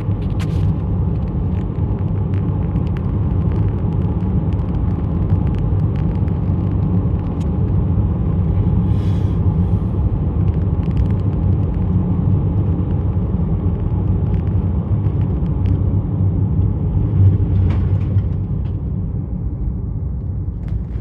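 Steady low rumble with scattered sharp clicks and ticks, easing off slightly near the end.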